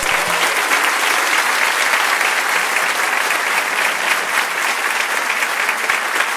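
Live audience applauding steadily.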